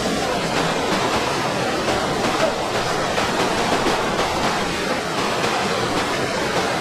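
Water gushing steadily out of a concrete culvert outlet into a channel, a loud, even rush of churning water.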